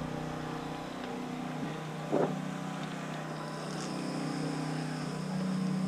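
A steady low motor or engine hum made of several held tones, with one brief short sound about two seconds in.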